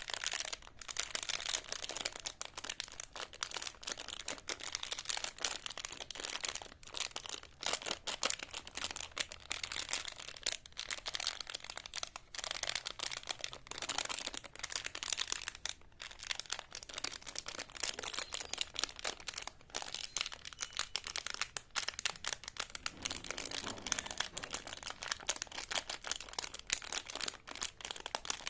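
Crinkly candy wrapping on a jumbo lollipop being handled: a continuous dense crackle with a few brief pauses.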